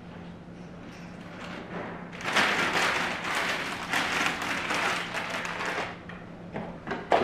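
Plastic spinach bag crinkling loudly as it is handled and folded shut, from about two seconds in until about six seconds. A single sharp knock near the end.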